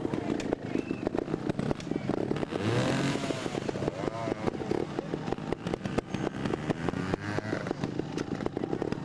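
Two-stroke trials motorcycle engine popping at low revs and being blipped hard, its pitch swinging up and back down a few times around three to four seconds in, as the bike is ridden up a rocky step.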